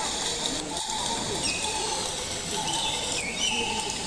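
A few short bird chirps, some falling in pitch, over a steady background hum.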